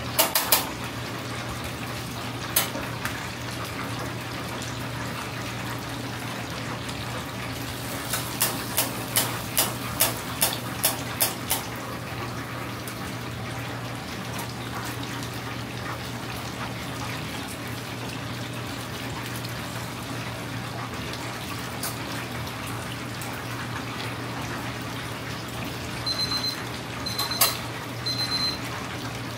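Karaage chicken deep-frying in a stainless commercial fryer: a steady sizzle of the hot oil, with metal tongs clicking against the fryer and basket, in a quick run of clicks about eight to eleven seconds in. A few short high beeps near the end, over a steady low hum.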